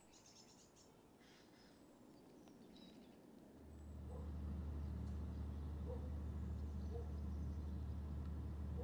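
Faint bird chirps in a quiet rural background. About three and a half seconds in, a steady low hum starts suddenly and holds level, with faint soft ticks about once a second.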